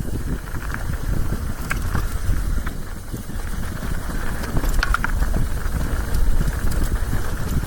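Wind buffeting the camera microphone over the rumble and rattle of a Trek Slash mountain bike rolling down a rough downhill trail, with scattered sharp clicks and knocks from the bike and the ground.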